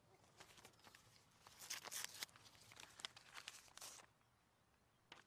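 Faint tearing and rustling of a paper envelope being opened and a letter pulled out, in a run of short strokes from about a second and a half to four seconds in.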